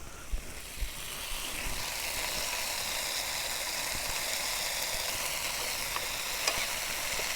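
Chopped herbs, tomato and garlic sizzling in hot oil in a pan, building up about a second in and then holding steady, with a few light clicks.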